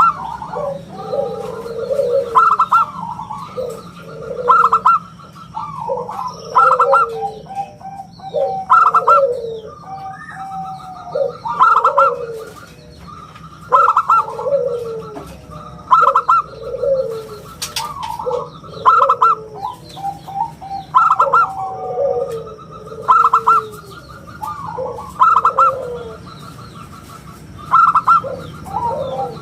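Zebra dove (perkutut) cooing over and over, with its round, ringing call phrases repeating about every two seconds.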